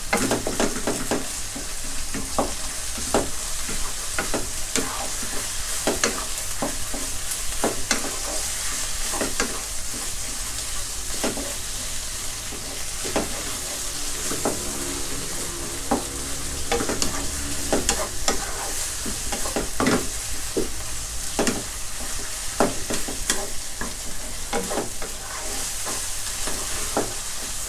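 Pork belly in shrimp paste sizzling in a nonstick frying pan, stirred with a wooden spatula whose strokes scrape the pan roughly once a second, as the palm sugar is worked in to dissolve.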